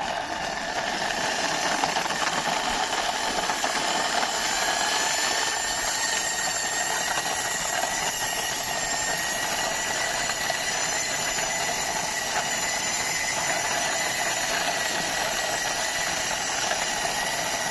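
Steady engine-like running noise with a thin high whine that comes in about four seconds in and holds steady until near the end, accompanying a toy car being driven along by hand.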